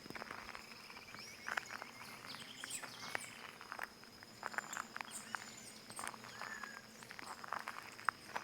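Footsteps on stones, in short irregular steps, with small birds chirping and whistling and an insect's steady high buzz behind them.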